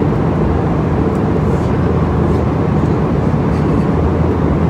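Steady cabin noise of an Airbus A320 airliner in flight: an even, low rumble of engines and airflow around the fuselage.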